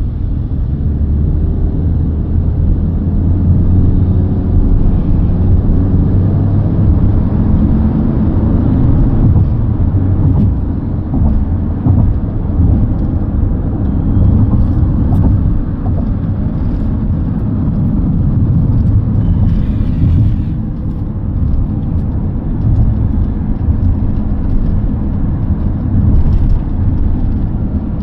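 Road and engine noise heard inside a car's cabin in traffic: a steady low rumble, with a faint tone that rises and falls in the first several seconds.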